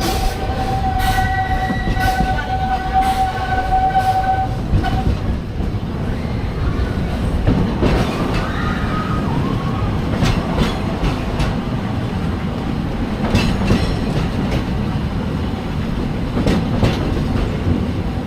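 Narrow-gauge steam train rolling along the track, heard from a passenger car: a continuous rumble with scattered clacks and knocks from the wheels and couplings. A steady high tone sounds over it for the first five seconds or so, then stops.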